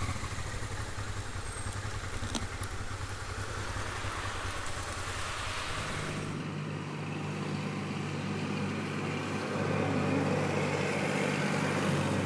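Honda Transalp 650's V-twin engine running at low speed. About six seconds in, the sound changes abruptly to a steadier, even hum.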